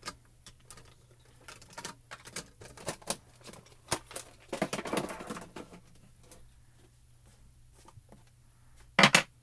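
Small clicks and taps of ink pads and stamp gear being picked up and set down on a craft table, with a denser shuffle about halfway through and one louder knock near the end.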